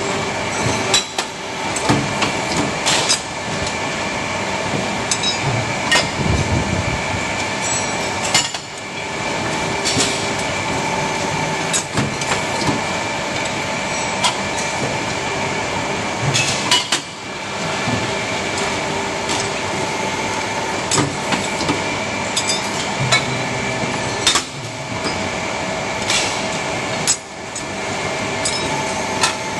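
Shoe-making machinery running: a steady mechanical whine and hum with frequent metallic clacks and knocks.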